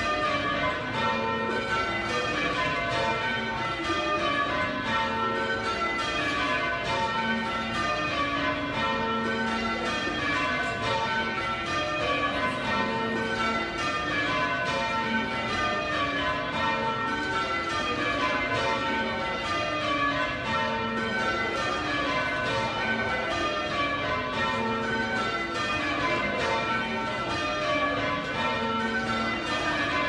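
A ring of eight church bells, mostly cast by John Taylor & Co. with two Whitechapel trebles, rung full circle by hand from the ringing room below. The bells strike one after another in steady, evenly spaced falling sequences that repeat over and over, each stroke ringing on into the next.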